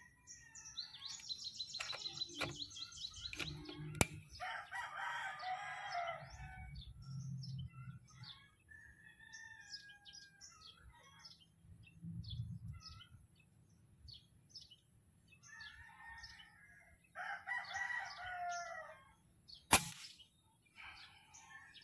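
Two sharp shots from a CDO PCP air rifle with a Lothar Walther barrel firing pellets, about 4 seconds in and again about 16 seconds later, the second the louder. In between, a rooster crows twice and small birds chirp.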